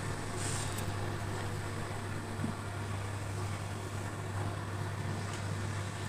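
Indesit BWSE 81293X washing machine running with a steady low hum and an even whooshing noise.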